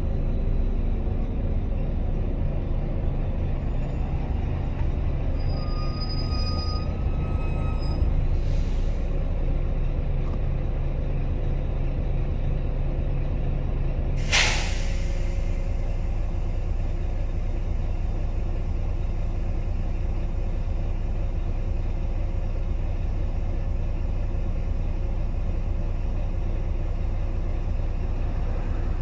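Volvo B9TL double-decker bus heard from on board, its diesel engine droning steadily in slow traffic, with a few faint high brake squeals a few seconds in. About halfway through comes one sharp, loud hiss of air from the air brakes as the bus stands, after which the engine settles to a lower idle note.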